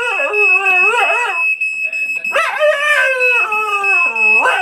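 A dog howling along to a smoke alarm's steady high-pitched tone. There is a run of short wavering howls, a pause of about a second, then one long howl that falls in pitch, and another howl begins at the very end.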